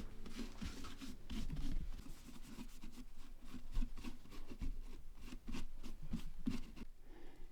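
Scraping and cutting at a pumpkin with a hand tool, in short irregular strokes.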